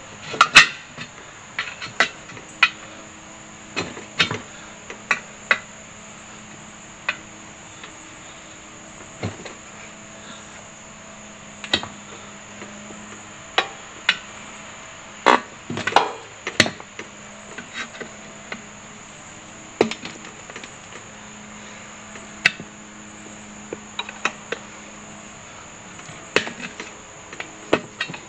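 Irregular metal clanks and knocks as a pry bar works a tire's bead over a steel wheel rim on a manual tire changer, loudest in a short cluster a little past halfway. A steady high insect chirring runs underneath.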